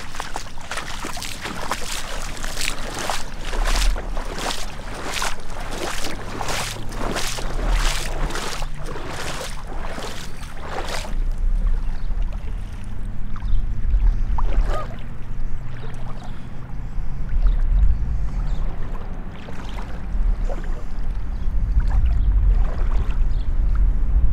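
Gumboot footsteps, about two a second, for roughly the first eleven seconds; then they give way to the low slosh and swirl of wading through floodwater in gumboots.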